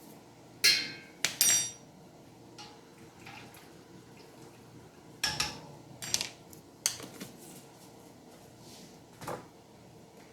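Metal kitchen utensils clinking and knocking against a pot and containers while a teaspoon of minced onions is measured out and added: about seven short sharp clinks, the loudest about a second in, one with a brief metallic ring.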